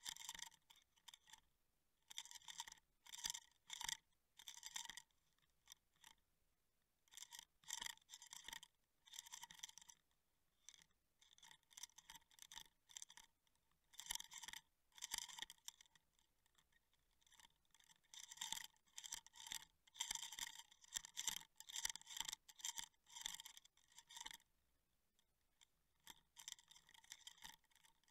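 Irregular bursts of scratchy, scrubbing noise rubbing against an underwater camera's housing, each lasting up to about a second, with quiet gaps between them.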